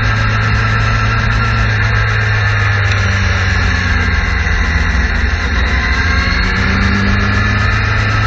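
Suzuki GSX-R sport bike's inline-four engine running at a steady cruise, heard from a camera mounted on the bike, with wind rushing over the microphone.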